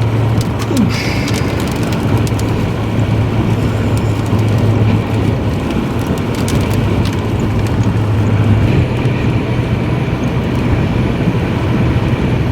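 Inside a moving vehicle: a steady low engine and road drone over tyre and wind noise, with scattered sharp ticks, mostly in the first few seconds.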